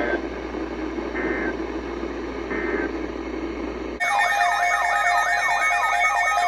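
Three short Emergency Alert System end-of-message data bursts, two-tone digital warbles about a second apart, over radio static. About four seconds in, a louder siren-like electronic alert tone starts: rapid repeated pitch sweeps over steady tones.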